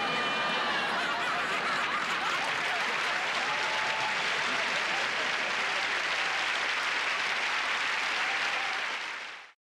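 Studio audience applauding steadily, fading out and cutting to silence near the end.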